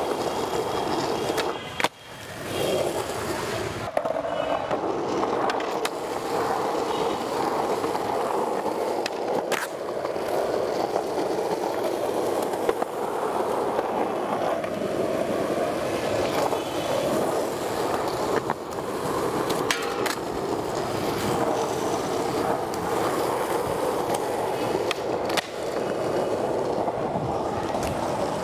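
Skateboard wheels rolling steadily over smooth concrete, with a few sharp clacks of the board against the ground now and then.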